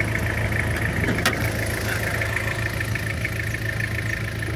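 Toyota Kijang Krista's four-cylinder diesel engine idling steadily, with a single sharp click about a second in.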